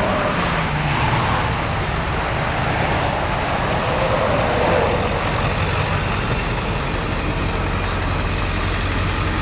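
John Deere 332 skid steer's diesel engine running steadily, its pitch falling in the first second and then holding.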